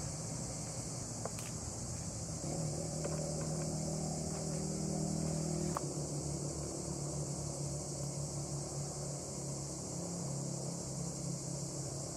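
Steady, unbroken high-pitched insect chorus in the woods, with a low steady hum underneath and a few faint clicks.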